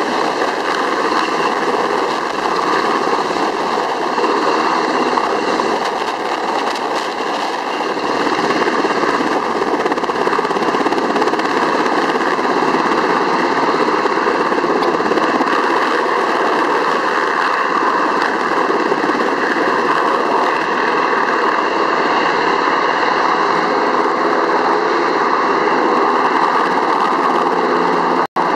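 UH-60 Black Hawk helicopter hovering low and climbing away: loud, steady rotor and turbine noise with a high whine running through it. The sound cuts out for an instant near the end.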